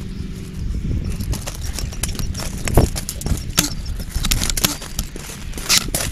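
Wind rumbling on the microphone of a handheld camera while it is carried along on foot, with scattered short crunches and clicks of footsteps and handling. The loudest of these come about three and a half seconds in and near the end.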